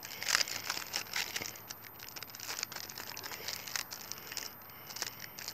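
Retail packaging rustling and crackling in the hands as it is turned over and opened, busiest in the first second or so and thinning out afterwards.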